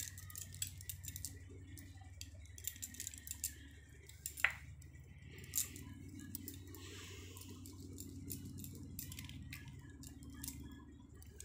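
Bangles clicking and clinking lightly against each other as a hand rubs a sugar scrub into the other hand and forearm, with soft wet rubbing of the paste on skin. The clicks come scattered and irregular, a couple of them louder around the middle.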